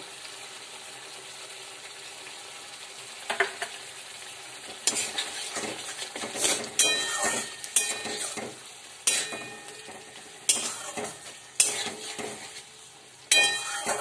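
A metal spatula stirring a curry in a pan, with a series of clanks and scrapes against the pan, a few ringing briefly, over a steady sizzle from the bubbling gravy.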